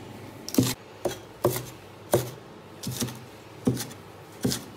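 Chinese cleaver chopping spring onion leaves on a plastic cutting board: about seven separate knocks, roughly one every two-thirds of a second.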